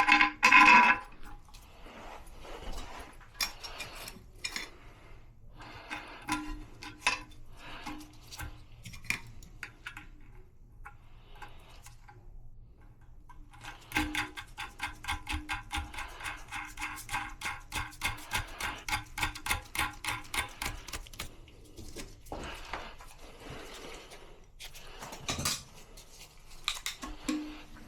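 Hard parts and hand tools clinking and knocking during toilet flush valve work, with about seven seconds of quick, evenly spaced clicking in the middle.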